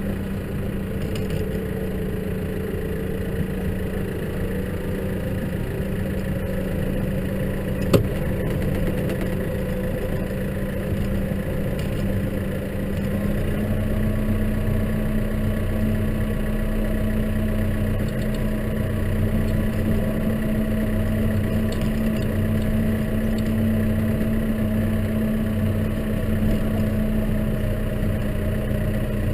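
Case tractor's diesel engine running steadily under a snow plough, its engine speed picking up slightly about halfway through. A single sharp click about eight seconds in.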